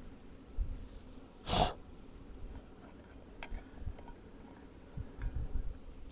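A short, sharp breath close to the microphone about a second and a half in, among faint scattered clicks and low bumps.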